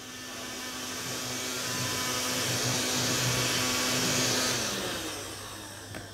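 Handheld vacuum cleaner running, a steady motor hum under a hiss of rushing air; it dies away about five seconds in, and a short click follows near the end.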